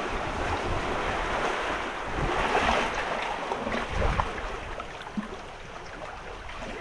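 Small waves washing over sand between rocks, swelling about two to three seconds in, with wind buffeting the microphone in short gusts.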